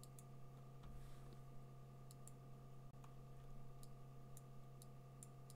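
Faint, irregular clicks of a computer mouse, about eight of them, over a steady low hum.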